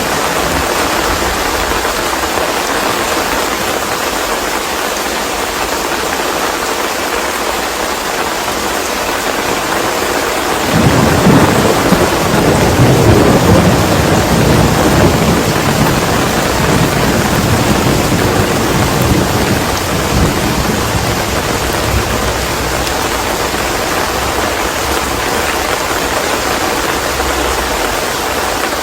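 Steady rain falling, with a rumble of thunder that breaks in suddenly about ten seconds in and rolls away over the next ten seconds or so.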